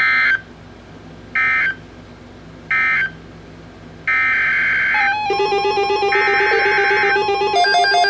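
Three short digital data bursts of a NOAA Weather Radio broadcast, the end-of-message code closing a severe thunderstorm watch alert, followed about four seconds in by the longer data bursts of the next alert's header. About five seconds in, the Midland weather radio's own alert alarm starts, a rapid repeating beeping of several tones, signalling that a new alert has been received.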